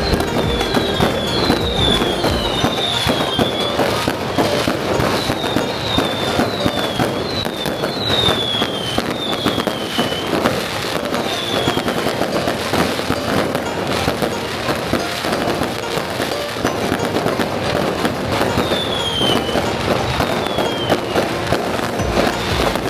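Fireworks and firecrackers crackling and popping densely and without a break, with short whistles falling in pitch again and again over the top, most of them in the first half.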